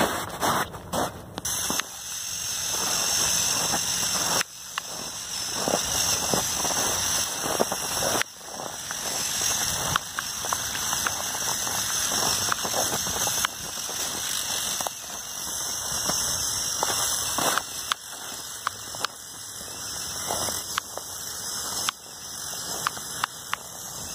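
The Lego Technic RC snowmobile's two buggy motors driving its tracks through snow, running in spells that stop and start again several times, with snow crunching under the tracks.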